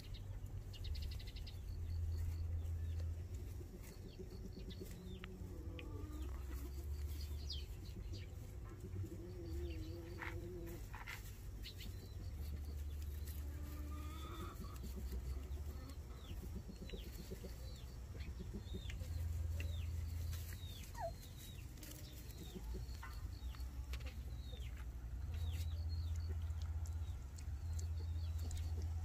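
Chickens clucking, with many short high falling squeaks scattered throughout, over a low rumble of wind buffeting the microphone.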